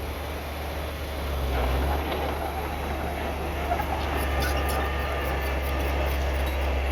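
Heavy diesel earthmoving machinery running steadily with a low rumble, with light metallic clanks and squeaks from about four seconds in.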